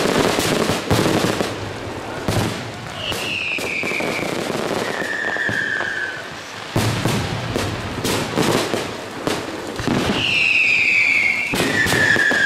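Fireworks display: many sharp bangs and crackles from bursting shells in quick succession, with falling whistles heard twice, a higher one followed by a lower one each time.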